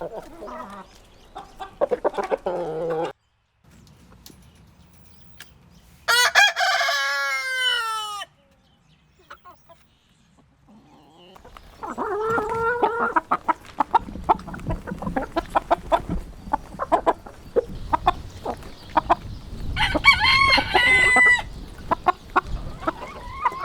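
Several rooster crows from separate clips that cut in and out abruptly: a crow about a quarter of the way in, another about halfway, and a third near the end. Short clucks and clicks come between them.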